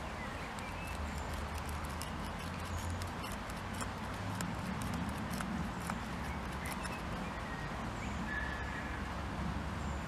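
Ceramic knife tip twisted into the end of a hardwood stick to bore a hole: a steady scraping and grinding against the wood, with many small irregular clicks and crackles, over a low handling rumble.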